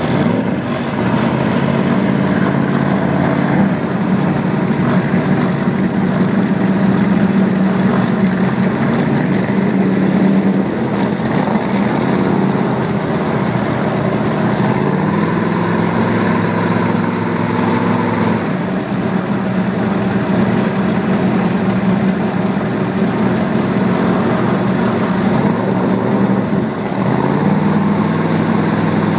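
Engine running to drive a prototype Ox drive with a clutch, its pitch stepping up and down several times as the speed changes.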